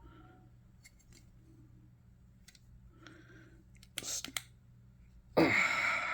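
Light metal clicks from a Victorinox SwissTool multitool being handled while its folding implements are worked open. There are a few faint ticks early, then a louder cluster of two or three sharp clicks about four seconds in. A short loud rush of noise comes near the end.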